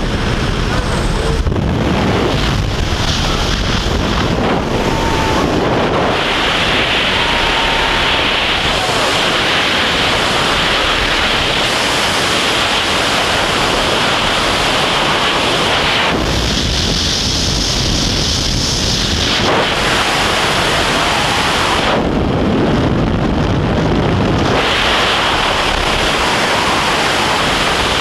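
Loud wind rushing over the camera microphone in tandem skydiving freefall, a steady roar of air whose tone shifts every few seconds.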